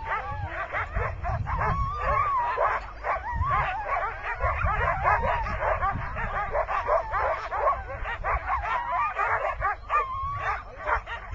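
A hitched team of sled dogs barking, yipping and whining all at once in a continuous overlapping chorus of high wavering cries and short sharp yelps, the excited clamour of sled dogs on the line before a run.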